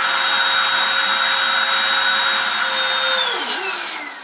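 Hoover WindTunnel MAX bagged upright vacuum cleaner running at full speed with a steady high motor whine, then switched off about three seconds in, the whine falling in pitch as the motor winds down.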